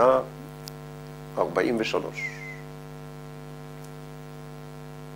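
Steady electrical mains hum with a buzzing stack of overtones, running unchanged under and between a man's few words.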